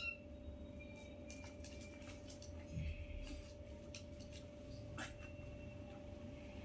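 Kittens playing on a woven rag rug: a few scattered taps and scuffles with faint, short high mews, over a steady hum.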